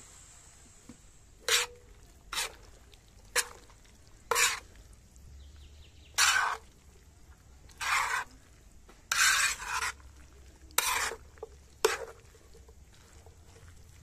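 A utensil scraping and stirring food in a sac pan, in about nine separate short strokes, one longer stroke near the middle; a few strokes end in a brief ringing tone.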